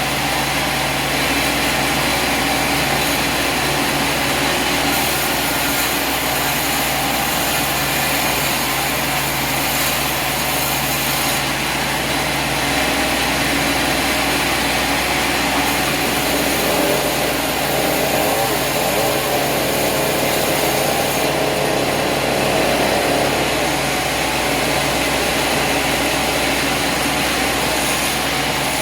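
An engine running steadily at an even level, with a dense noise across the whole range.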